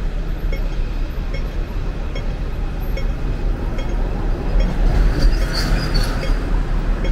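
Steady low rumble of vehicle noise, with a short hiss carrying a faint high squeal about five seconds in.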